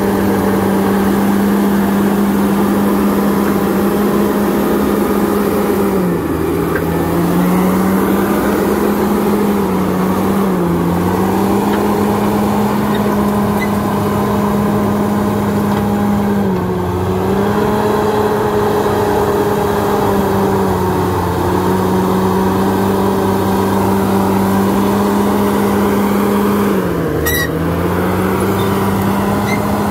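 Crawler bulldozer's diesel engine running steadily and loudly. Its pitch sags briefly about five times and recovers, as the engine takes load. A sharp click comes near the end.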